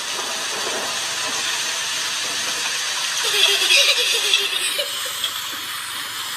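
A steady hiss that grows louder for about a second and a half midway through.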